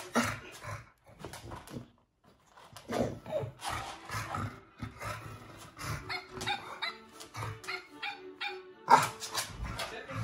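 A dog giving short barks and whines in quick succession, with a steady tune-like tone for a few seconds past the middle and a sharp, loud sound about nine seconds in.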